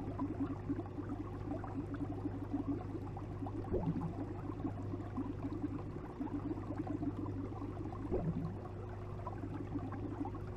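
Aquarium filter or air pump humming steadily under a continuous bubbling and trickling of water.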